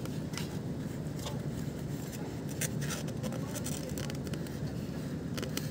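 A takeaway food box scraping and tapping against a glass bowl as chicken and rice are tipped out: a handful of short, separate scrapes over a steady low background rumble.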